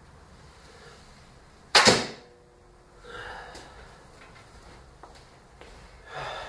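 A 120-pound tri-laminate warbow shot: one loud, sharp snap about two seconds in as the string is loosed, with a brief ring after it. Softer scuffing and footsteps follow.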